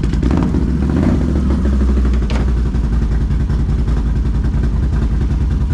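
Can-Am Maverick side-by-side's engine running steadily with a deep, even low hum.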